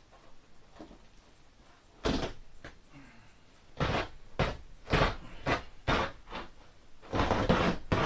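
Old carpet being cut and ripped up off a motorhome floor: a series of short tearing noises, the first about two seconds in, then several more in quick succession, the longest near the end.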